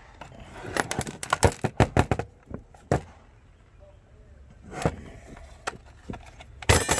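Clicks and knocks of a small plastic-cased solar charge controller being handled and pried open. A quick run of knocks comes about a second in, single knocks follow a few seconds later, and another quick cluster comes near the end.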